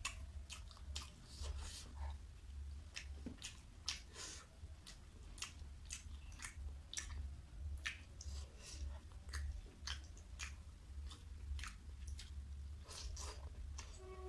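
Close-miked wet chewing and lip-smacking of a handful of rice and curry: many short, irregular mouth clicks, over a steady low hum.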